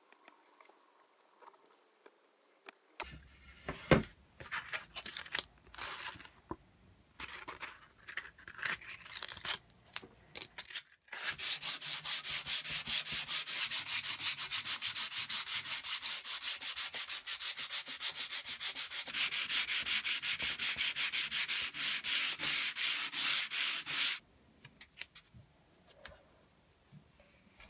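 Sandpaper rubbed rapidly back and forth by hand along a wooden axe handle: a dense, even run of quick scraping strokes that starts about eleven seconds in and stops abruptly some thirteen seconds later. Before it come scattered knocks and handling noises, the sharpest about four seconds in.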